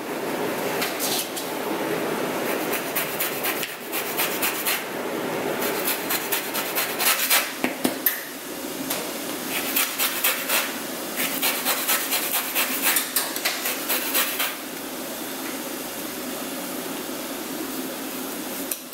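A lemon rolled under the palm on a plastic cutting board, then scraped against a handheld rasp zester in many quick strokes, releasing its juices and then taking off the zest.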